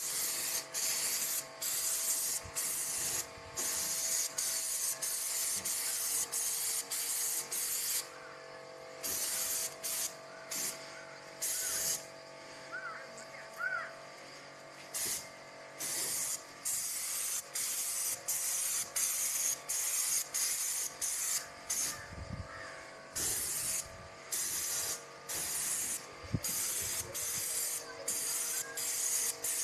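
Graco 390PC airless paint sprayer's gun hissing in repeated short bursts as the trigger is pulled and released over and over, with a few longer pauses. A steady hum runs underneath.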